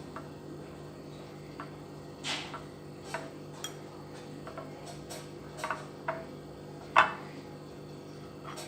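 A spoon clinking and knocking against a bowl while slime is stirred: about eight irregular clinks, the loudest about seven seconds in, over a steady low hum.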